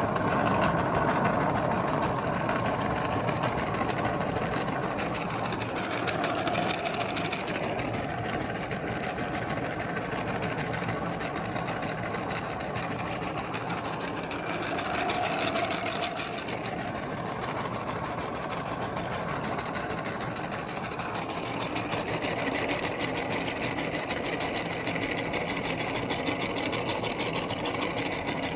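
Electric meat grinder running continuously, its motor whirring as it grinds bubble gum. The sound shifts a few times as the load changes.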